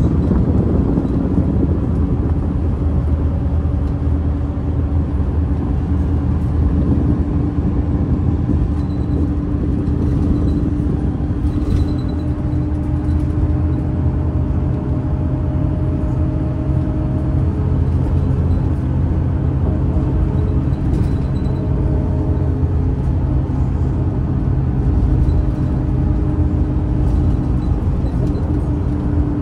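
Daewoo FX116 coach's engine and road noise heard from inside the passenger cabin while the bus drives along: a steady low rumble with an even engine hum.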